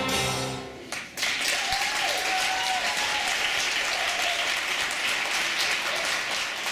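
Audience applauding, starting about a second in as the last held sung note of a song fades out.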